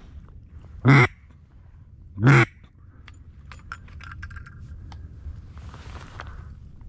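Duck call blown twice at close range: two loud, brief quacks about a second and a half apart. Faint clicks and rustling from the reeds follow.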